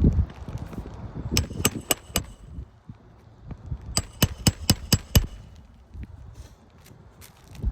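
Hammer blows on a roof during shingle repair: two quick runs of strikes, about four a second, four then six, each with a short metallic ring.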